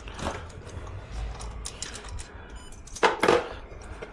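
Hand tools at work on a motorcycle's exhaust bolts: a socket ratchet clicking in a quick run and metal parts clinking. A brief louder clank comes about three seconds in.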